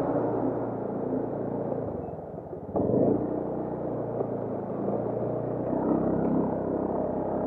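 Small motorcycle engine running as the bike pulls away and rides onto the road. Its sound dips briefly and picks up again suddenly about three seconds in.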